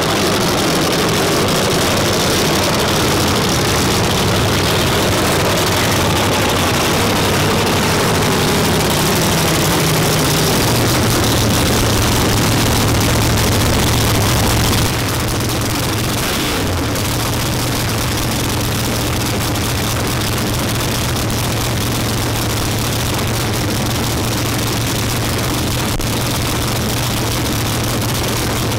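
Big-tire no-prep drag race car engines running at the starting line. The engine pitch wavers and falls over the first ten seconds, then settles into a steady low idle.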